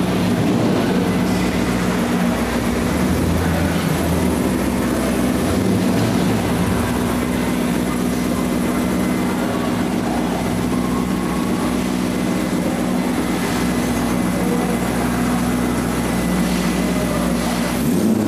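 Chevrolet Corvette C5's V8 engine running at low speed, a steady low rumble, as the car creeps forward.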